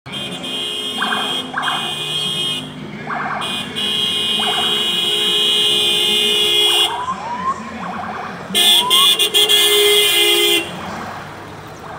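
Siren and horn signals from the marathon's lead escort vehicles as they pass: three long, steady, high-pitched tones, the last near the end, with short toots in the first few seconds and a few rising chirps just past the middle.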